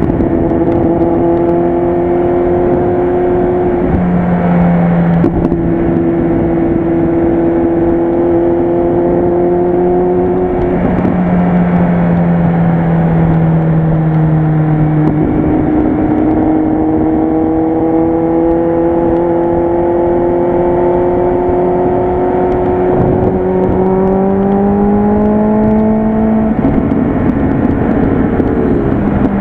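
Kawasaki Z800 inline-four motorcycle running at cruising speed with a loud exhaust note that holds steady, dips and shifts pitch a few times as the throttle changes, and rises near the end as it speeds up.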